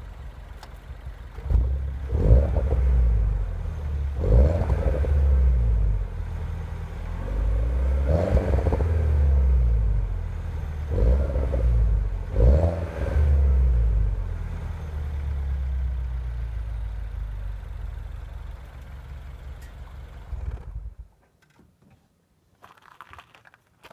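Mini Cooper S R56's 1.6-litre turbocharged four-cylinder with the stock exhaust, idling and blipped through about five quick revs that rise and fall back to idle. The engine sound cuts off abruptly near the end.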